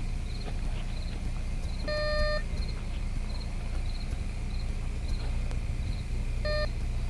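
Metal detector giving two beeps: a half-second tone about two seconds in and a shorter one near the end, each signalling metal under the coil. Crickets chirp steadily throughout, over a constant low hum.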